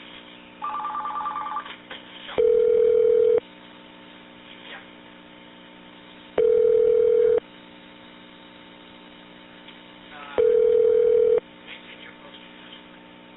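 Telephone line signalling tones: a steady tone about a second long repeats every four seconds, three times, and a short rapidly pulsing two-tone signal sounds about a second in.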